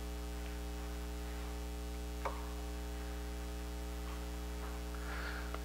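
Steady electrical mains hum with a buzzy stack of overtones in the audio feed, with one brief click about two seconds in.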